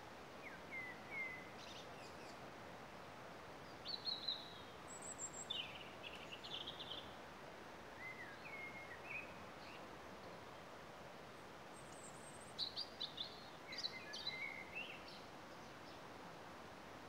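Woodland songbirds chirping and singing in short scattered phrases, with a quick run of notes about three quarters of the way through, over a steady even hiss.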